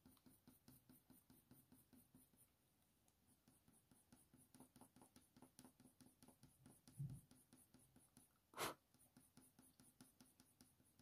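Faint scratching of a dark sepia Faber-Castell Polychromos coloured pencil shading over hot-press watercolour paper in quick, short, repeated strokes, several a second, pausing briefly about two and a half seconds in. There is a soft thump about seven seconds in and a single sharp click about a second later.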